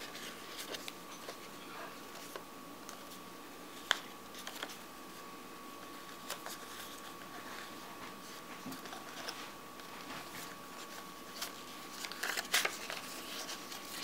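Paper rustling and crinkling as a sheet is folded and creased by hand, with a sharp tap about four seconds in and a louder flurry of crinkling near the end. A faint steady high whine runs underneath.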